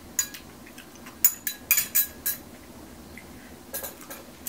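Eating utensils clinking against a dish of kimchi stew: several short, sharp clinks, bunched together about a second to two and a half seconds in, with a couple more near the end.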